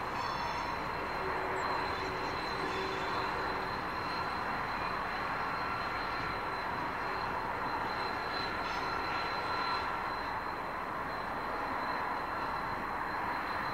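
Two Pacific National diesel-electric locomotives, an 81 class and a BL class, running light at low speed, their engines a steady rumble.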